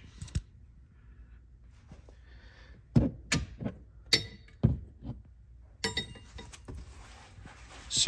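Metal tire-change tools from the vehicle's tool kit being handled and set down. There are a few sharp knocks and clinks, most of them in a cluster about three to five seconds in.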